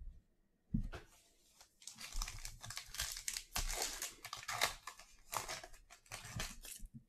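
Shiny foil wrapper of a trading-card pack crinkling and tearing as it is ripped open by hand, in a run of short rustles starting about two seconds in. A single knock comes shortly before.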